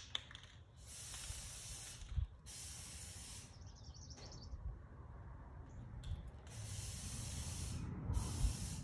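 A spray hissing in four short bursts, each about a second long and cut off sharply, with a faint low rumble underneath.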